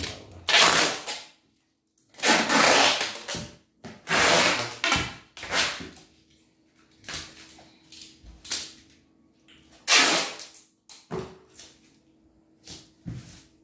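Packing tape being pulled off the roll in a series of loud rips and pressed onto a plastic-wrapped box, the longest rips early on and a few shorter ones near the end.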